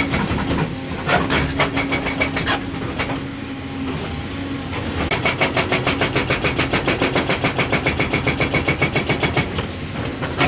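Excavator's diesel engine running while its hydraulic breaker hammers: a few scattered blows in the first seconds, then a steady rapid hammering of about nine blows a second from about halfway until shortly before the end.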